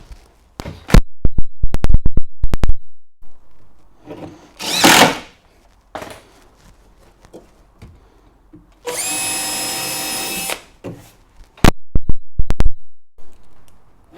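Cordless drill-driver driving a screw through a timber stair tread into the support block below, its motor whining steadily for about a second and a half about two-thirds of the way through. Before and after the run come clusters of loud, sharp clicks and knocks.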